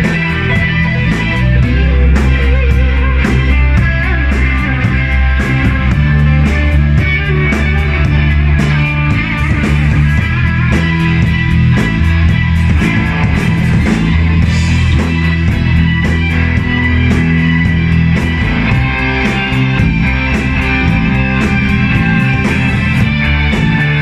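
A rock band playing live: electric bass, electric guitars through amplifiers and a keyboard, at a steady loud level.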